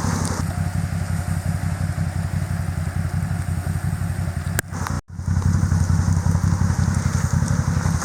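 A steady, low engine drone with a fast, even pulse, which drops out for a moment about five seconds in.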